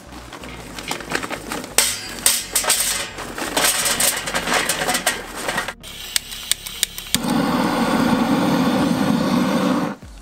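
Irregular clattering and knocking for about six seconds, then a few sharp clicks and a handheld gas torch burning with a steady loud hiss for about three seconds, cutting off abruptly near the end, as it lights the charcoal chimney starter.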